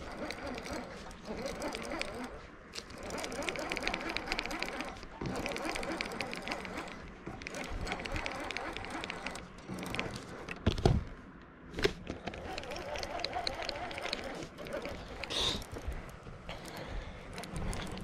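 Baitcasting reel clicking in rapid runs while a hooked catfish is fought on the rod. Two sharp knocks come about two-thirds of the way through.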